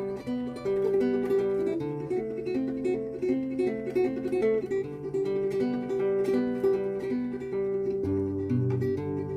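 Background music: a plucked acoustic guitar melody, with lower bass notes coming in near the end.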